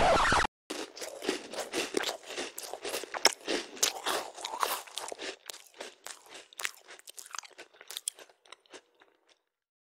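A person biting into and chewing a hamburger, with irregular crunching chews several times a second that thin out and stop about nine seconds in.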